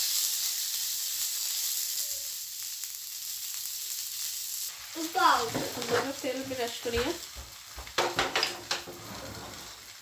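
Paratha sizzling as it goes into hot oil in a non-stick frying pan, loudest at first and dying away about halfway through. Then a few seconds of short squeaks and clicks as a spatula works the bread in the pan.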